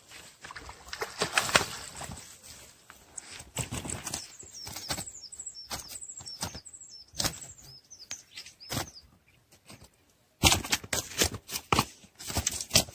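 A hooked rohu thrashing as it is hauled out of the pond, then flapping and slapping hard on the grass in a rapid burst of thumps near the end.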